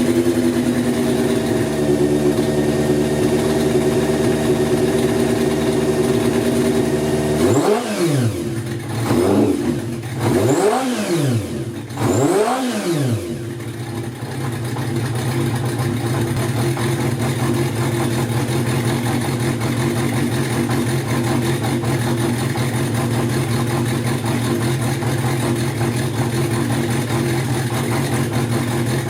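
Kawasaki Zephyr χ air-cooled inline-four on racing carburettors, running on freshly fitted Brisk racing spark plugs: it holds a steady fast idle, is blipped quickly three or four times, each rev rising and falling, then settles to a lower steady idle.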